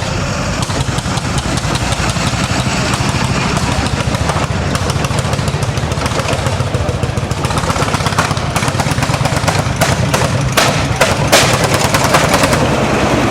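Lanz Bulldog tractor's single-cylinder hot-bulb two-stroke engine running with a rapid, steady chugging. In the second half, a series of heavy sharp bangs comes from the exhaust, which is shooting fire; the loudest bang is a little past the middle of that run.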